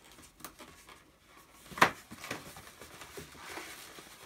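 Latex 260 modelling balloon being twisted and handled. There is one sharp rubber snap about two seconds in, with fainter clicks and rubbing of latex around it.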